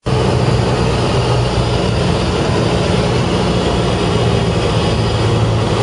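Cessna 172S's four-cylinder Lycoming IO-360 engine and propeller droning steadily, heard from inside the cabin, with a rush of airflow noise.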